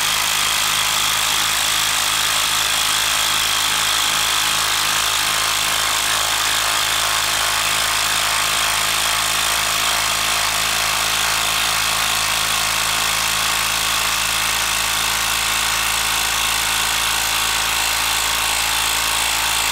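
Hilti 12-volt brushed impact driver hammering continuously as it drives a long TimberLOK structural screw into a wooden log round, a steady unbroken rattle of impacts under sustained load.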